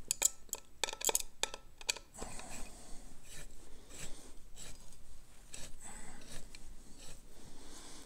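Hex driver working the burr bolts of a Pharos hand coffee grinder as they are tightened: a quick run of sharp metal clicks in the first two seconds, then fainter ticks and scraping.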